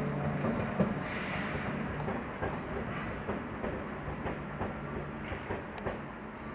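Passenger train running through the station, its wheels clicking over rail joints, the sound fading as it moves away.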